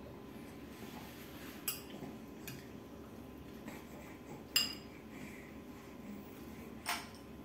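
Metal spoon clinking against a ceramic cereal bowl while scooping cereal with granola: a few sharp, separate clinks, the loudest a little past halfway with a brief ring.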